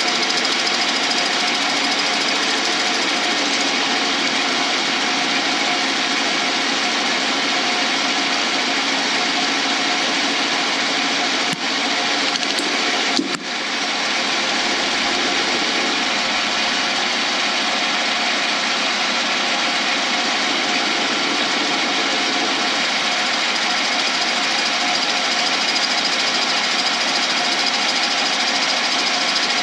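Lathe running steadily while the cutting tool takes a pass along a cast blank in a PVC pipe mould, a constant machine whirr with a cutting hiss. Two brief breaks in the sound come about halfway through.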